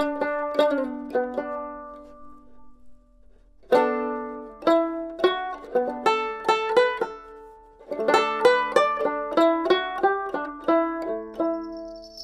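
Background music: a plucked string instrument playing a melody in short phrases of quickly fading notes, with pauses about three seconds in and again near eight seconds.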